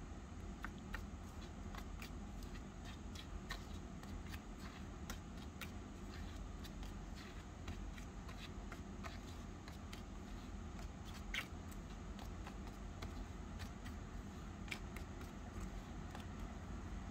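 A tiny spoon stirring dry powder in a miniature stainless-steel pot, giving irregular light clicks and scrapes against the metal, over a steady low hum.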